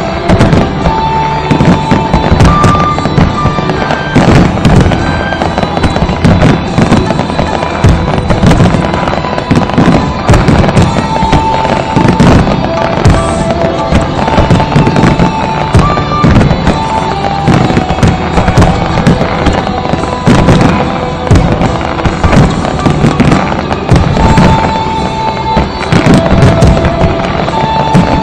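Fireworks display going off nonstop: dense, rapid bangs and crackles, over music with long held melodic notes.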